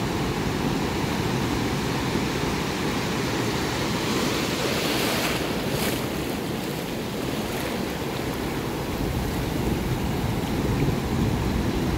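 Ocean surf breaking and washing over the shallows, with wind rumbling on the microphone. The hiss of a breaking wave swells about halfway through.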